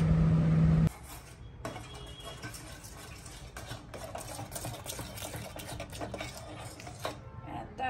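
A microwave oven's steady hum for about the first second, cut off abruptly. Then a utensil stirring and scraping thick chocolate ganache round a steel pot as it is worked to thicken, in quick irregular scrapes and clicks.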